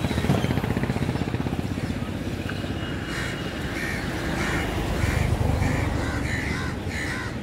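Crows cawing over and over from about three seconds in, over a steady low rumble.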